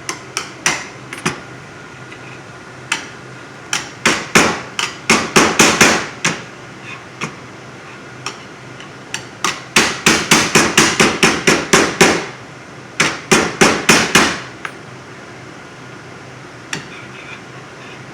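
Rubber mallet tapping the bent wheel rod of an Action Man Scorpion toy tank to straighten it. The taps come in quick runs of several a second, with short pauses between the runs.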